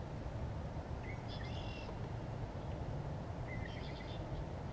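A songbird calling twice, short phrases of high notes about two and a half seconds apart, over a steady low background rumble.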